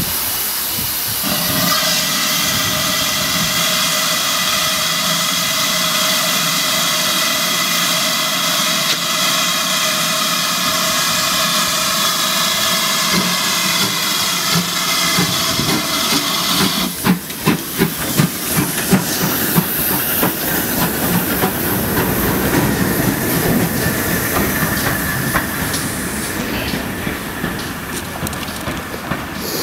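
GWR 2800 class 2-8-0 steam locomotive No. 2807 blowing off steam: a loud, steady hiss with a ringing tone that stops suddenly about seventeen seconds in. It then starts away with a few sharp exhaust beats, followed by the steady rumble and clatter of the train moving off.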